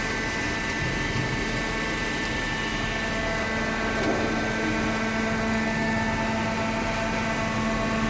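Hydraulic cardboard baler's electric motor and hydraulic pump running: a steady hum with a higher whine over it.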